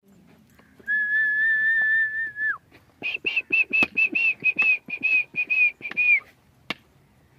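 A person whistling: one long held note that dips in pitch as it ends, then a quick run of short whistled pips, about four a second. A single sharp click comes near the end.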